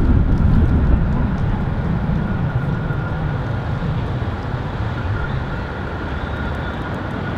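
A-class electric tram running along street track: a low rumble that slowly fades, with a faint steady whine above it.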